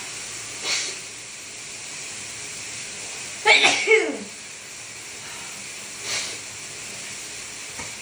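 A woman with a cold or allergies sneezes once about three and a half seconds in: a sharp hiss that breaks into a voiced cry falling in pitch. Shorter breathy bursts come just before one second and about six seconds in, over a steady background hiss.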